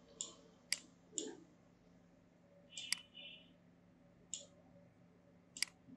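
Computer mouse buttons clicking: about six short, sharp clicks spread unevenly over a few seconds, with a faint steady hum underneath.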